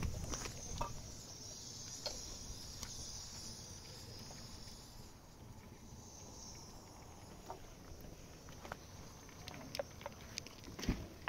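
Quiet outdoor ambience: faint footsteps on dry, stony ground with scattered light clicks, and a faint high hiss during the first half.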